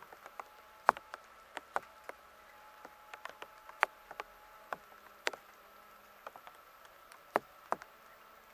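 Faint steady high hum, with about twenty short, sharp clicks and ticks at irregular intervals; the loudest comes about a second in.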